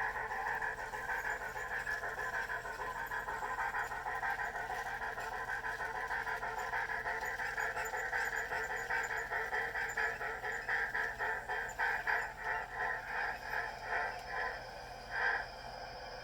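A DCC sound decoder in a Bachmann Plus 4-8-4 Niagara model steam locomotive playing steam exhaust chuffs. They blur into a steady rush at first, then from about ten seconds in turn into separate beats that come slower and slower as the locomotive slows, the last one near the end, leaving a quieter steady hiss.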